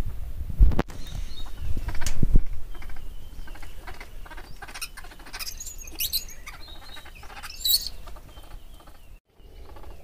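Birds chirping and calling in quick, high-pitched notes through the middle of the clip, over a low rumble that is strongest in the first two seconds.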